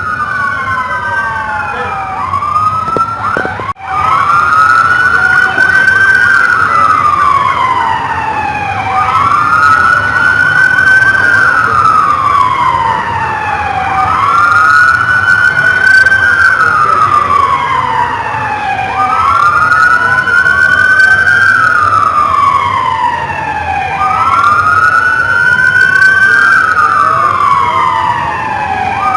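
Police car siren sounding a wail. It rises and falls in pitch about once every five seconds, with a second siren tone slightly out of step with the first. The sound drops out briefly about four seconds in.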